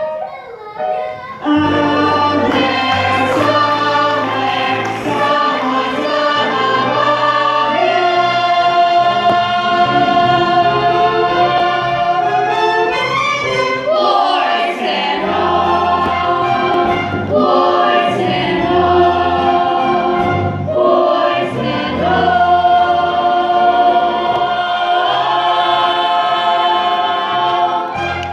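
A group of voices singing a song together over instrumental accompaniment with a sustained bass line. The full ensemble comes in about a second and a half in, and the song ends near the end.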